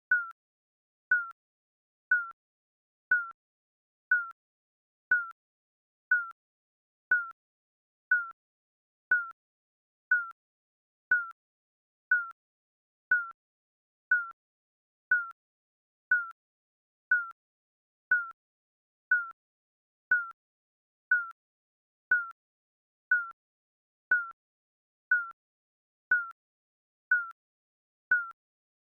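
Digital countdown timer beeping once a second: a short, high beep that dips slightly in pitch, evenly spaced throughout.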